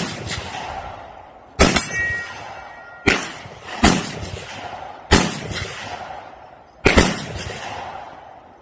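Pistol shots fired one at a time at an unhurried pace, about five in all, a second or two apart, each with a long echoing tail.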